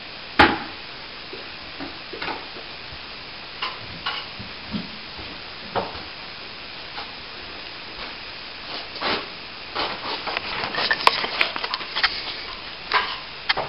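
Hand tools scraping and tapping on plaster as it is tidied off: a sharp knock about half a second in, a few scattered taps, then a busier run of scraping and clicks near the end, over a steady hiss.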